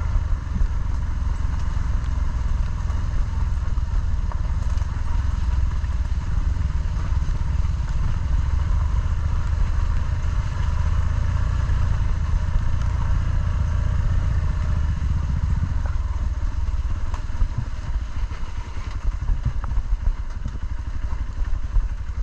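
Motorcycle engine running steadily under a dense low rumble, easing off and turning choppier about 16 seconds in.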